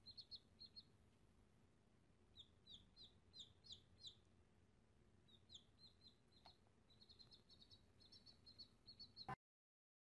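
Baby chick peeping: faint, quick high peeps in short runs, some sliding downward in pitch, stopping suddenly near the end.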